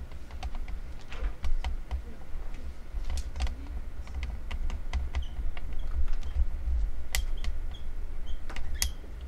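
A dozen or so scattered, irregular sharp clicks and taps over a steady low rumble.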